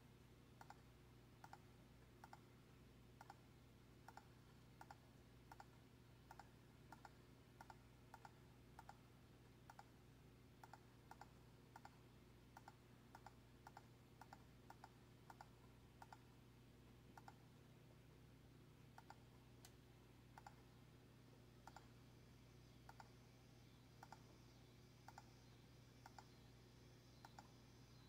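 Faint computer input clicks repeating about twice a second and growing sparser after the middle, as trail camera pictures are stepped through one by one. A low steady hum runs beneath them.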